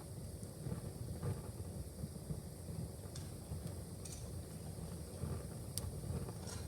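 Wood fire burning in a fireplace: a steady low rumble of the flames with a few scattered sharp crackles and pops, the loudest about six seconds in.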